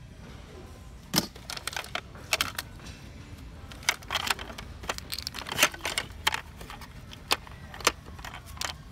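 Small fishing tackle clicking and rattling in the trays of a metal tackle box as gloved hands sort through it, with some crinkling of paper packets. The clicks come irregularly, a few a second at the busiest.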